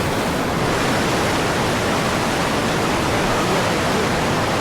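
Rushing river water of the Ayung River rapids: a loud, steady rush with no let-up.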